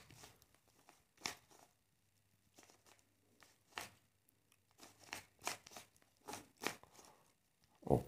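Stickerless plastic 3x3 Rubik's cube being turned by hand: a string of about a dozen short, faint clicking scrapes as layers are twisted, irregularly spaced, some coming in quick pairs.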